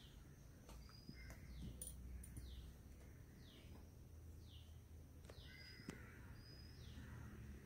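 Faint bird chirping: short high chirps that fall in pitch, repeating about once a second, over quiet room tone, with a few light clicks.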